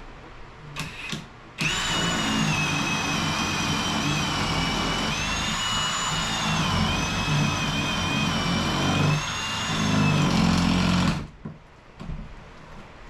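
Cordless drill boring under load: two quick trigger blips, then a long steady motor whine that wavers in pitch as the bit works. It stops suddenly near the end, and the battery is found dead.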